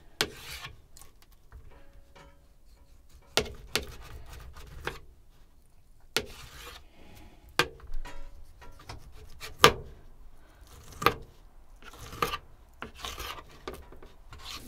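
Kitchen knife slicing raw top sirloin steak on a plate: a soft rasping as the blade saws through the meat, with sharp clicks each time the blade meets the plate, about eight in all, the loudest a little under ten seconds in.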